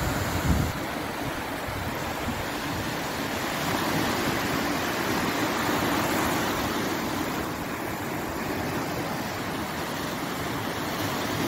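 Small Mediterranean waves breaking and washing up a sandy beach: a steady rush of surf that swells a little louder for a few seconds in the middle.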